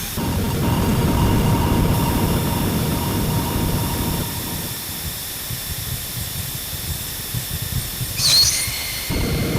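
Ritual-industrial noise drone: a dense low rumble under steady hiss and thin held tones. The rumble drops away about four seconds in, and near the end a short high squeal dips and rises just before the rumble comes back.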